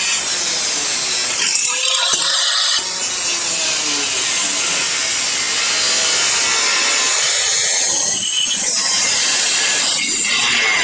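Angle grinder cutting through the sheet-steel trunk floor pan of a 1957 Chevy 210: a loud, steady grinding hiss, with the motor's pitch shifting slightly as the wheel bears into the metal.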